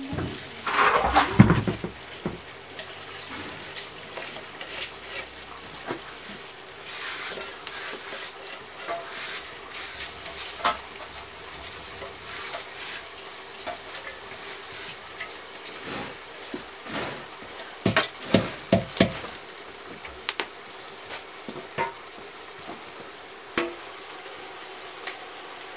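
Drained rice sliding from a steel colander into a metal pot about a second in, then sizzling in the pot over a wood fire, with scattered clinks and knocks of metal on metal, a quick cluster of them a little after halfway.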